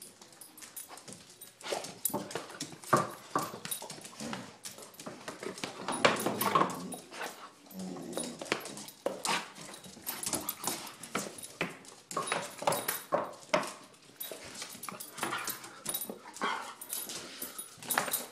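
Two pet dogs whining and yipping in the morning greeting, with many short sharp clicks and knocks mixed in.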